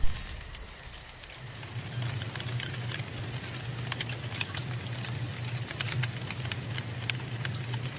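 A sharp glitch-like hit, then a low steady hum with scattered crackles and clicks above it, like an ambient sound-design bed.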